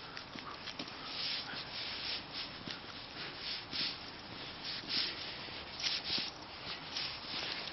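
Footsteps crunching on packed snow at a walking pace, a short scraping crunch about every half second.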